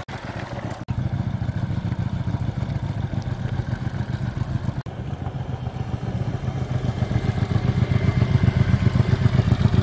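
Hyosung GV300S Aquila 300 V-twin motorcycle engine running at low speed as the bike is ridden slowly, growing louder toward the end. The sound breaks off briefly twice.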